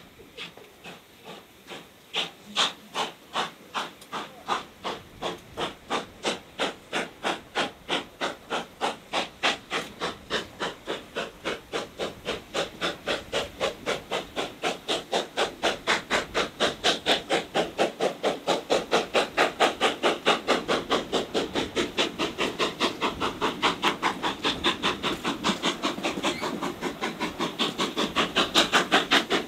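Steam locomotive working hard as it pulls its train away from a stand, its exhaust beats starting slow a couple of seconds in and quickening and growing louder as the train gathers speed, heard from a carriage window down the train.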